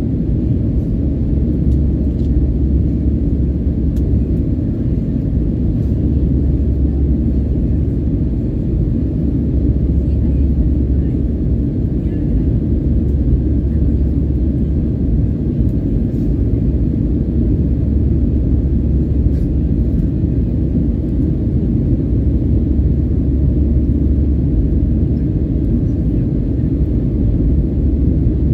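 Steady low rumble of jet engines and airflow heard inside the cabin of an Airbus A319-115 climbing out after takeoff, its CFM56 engines at climb power.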